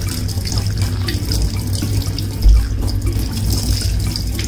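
Kitchen tap running as fresh coriander leaves are rinsed under it, a steady splashing of water. A short low thump about halfway through.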